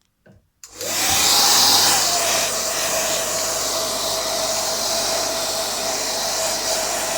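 Hair dryer switched on with a click less than a second in: its motor whine rises briefly as it spins up, then settles into a steady whir over the rush of blown air.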